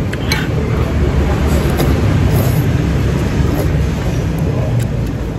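Steady low rumble of street traffic running close by, with a few light clicks of eating utensils.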